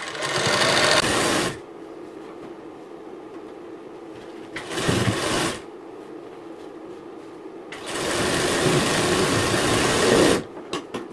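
Sewing machine stitching a blouse side seam with long stitches. It runs in three bursts, briefly at the start, again about five seconds in, then for about two and a half seconds near the end, stopping in between.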